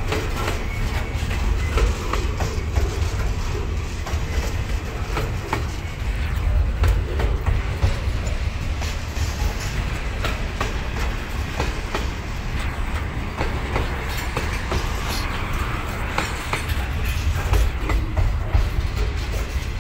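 Freight train wagons rolling past, a steady low rumble with wheels clicking over the rail joints.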